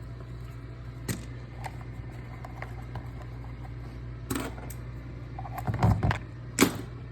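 Sharp clicks and knocks of dishwasher pump and chopper-assembly parts being handled and pulled apart, a few scattered strokes with a cluster of louder ones near the end, over a steady low hum.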